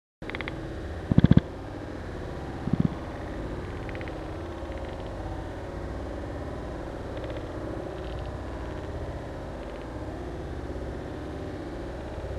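Steady low rumbling background noise that starts abruptly just after the beginning, with a loud thump about a second in and a smaller one near three seconds.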